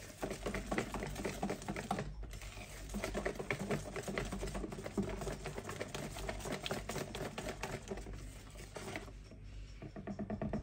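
A wire balloon whisk beating runny cake batter by hand, its wires clicking rapidly against the bowl as it mixes oil and milk into creamed eggs and sugar. The clicking pauses briefly about two seconds in and gets quieter near the end.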